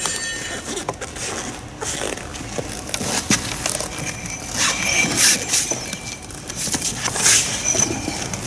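Steel tool parts being handled: irregular metal clinks, knocks and scrapes, with a couple of short ringing clinks around the middle and near the end.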